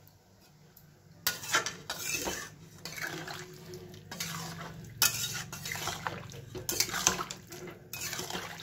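A spatula stirring a watery cauliflower and potato curry in a metal kadai, scraping and clinking against the sides of the pan in repeated, irregular strokes. The stirring starts about a second in.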